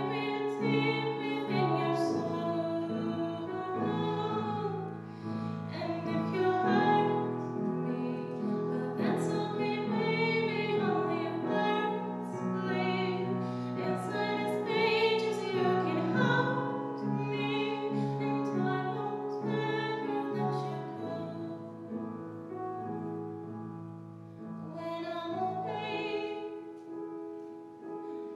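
A young woman singing a song with piano accompaniment; the voice eases off briefly about three-quarters of the way through, then comes back in.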